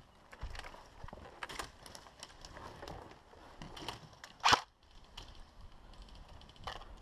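A single loud, sharp airsoft gun shot about four and a half seconds in, among scattered small clicks and rustles of handled gear.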